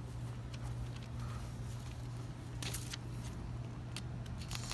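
Faint rustling and a few soft crackles from a sheet of newspaper being handled against a frying pan's edge, over a steady low hum.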